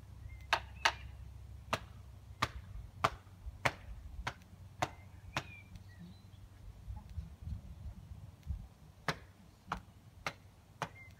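A run of sharp knocks, irregularly spaced about half a second to a second apart, with a pause of a few seconds in the middle, over a low rumble.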